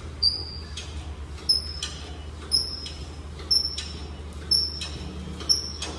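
Leg extension machine squeaking with each repetition: a short, high squeak about once a second, six in all, each with a sharp click and a fainter click between them, over a steady low hum.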